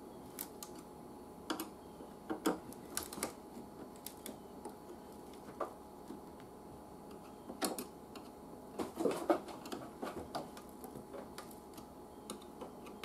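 Irregular small clicks, taps and knocks of hand work as a speaker is fitted back into a radio chassis, with a louder cluster of knocks about nine seconds in.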